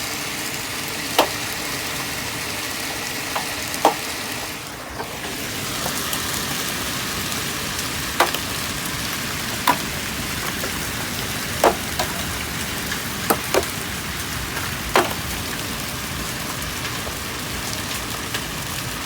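Hail falling: a steady hiss of hail and rain, with sharp cracks of single hailstones striking a hard surface, about ten of them at irregular intervals.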